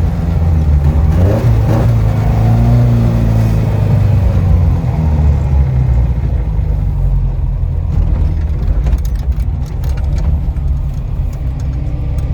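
Ford Anglia's swapped-in crossflow four-cylinder engine running as the car drives, heard from inside the cabin; the engine note rises about a second in, then holds fairly steady. A few light clicks come near the end.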